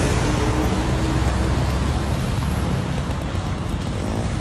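Steady city street traffic noise: a low rumble of passing vehicles under an even hiss.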